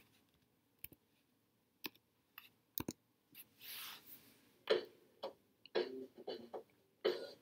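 A few sharp, separate computer keyboard clicks as a line of code is typed, the loudest about three seconds in. After that comes a short breath and faint wordless vocal sounds.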